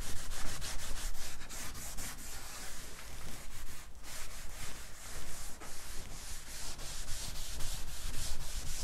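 Cloth buffing the freshly waxed wooden top of a chest of drawers: quick back-and-forth rubbing strokes, the rub that brings the wax to a slight sheen.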